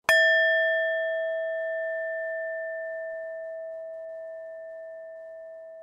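A meditation bell struck once, ringing on with a clear tone that slowly fades. Its higher, brighter overtones die away within the first few seconds.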